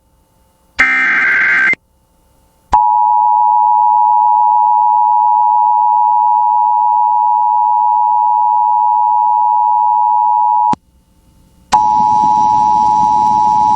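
Emergency Alert System broadcast over FM radio: a one-second burst of SAME header data, then the EAS two-tone attention signal held steady for about eight seconds and cut off sharply. After a pause of about a second the tone starts again, this time over a hiss.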